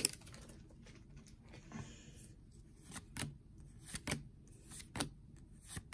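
Disney Lorcana trading cards being flipped through by hand one at a time, giving a few soft card snaps and slides spaced about a second apart.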